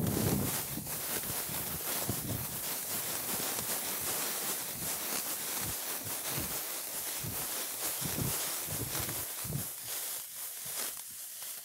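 Dry, ripe wheat stalks rustling and crackling as a person pushes through them on foot, with soft irregular footfalls underneath.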